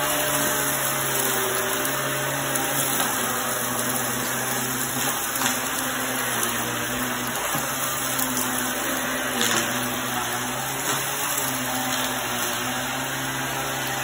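Upright bagless vacuum cleaner running steadily, its motor hum dipping and rising slightly as the head is pushed back and forth. Sand and grit crackle as they are sucked up off the rug.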